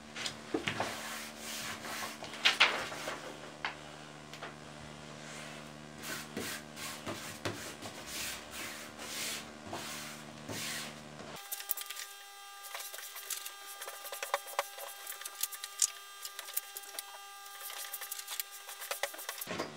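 Sheets of paper and card being handled on a cutting mat: irregular rustling, sliding and scraping as they are folded, creased and smoothed by hand, with occasional light taps.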